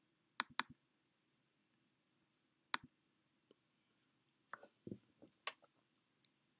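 Faint, scattered clicks from operating a computer: a quick pair near the start, a single click almost three seconds in, and a few more around five seconds in.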